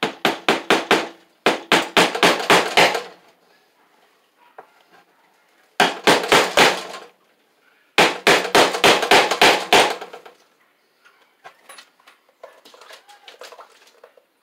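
Hammer driving cable staples into a wooden backboard to fasten Romex cable: four bursts of rapid taps, several a second, with fainter scattered knocks near the end.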